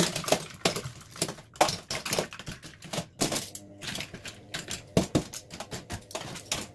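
Makeup brush handles clattering and clicking against one another and against a plastic pot as a bundle of brushes is sorted and set in head-down: rapid, irregular small knocks, several a second.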